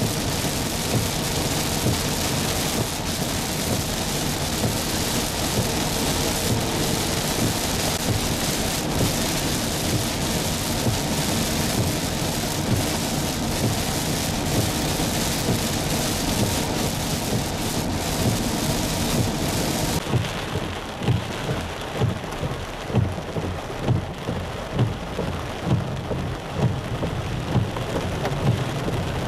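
Heavy rain pouring down, a dense steady hiss. About two-thirds of the way through, the sound changes to a duller rain with a regular low thumping about once a second.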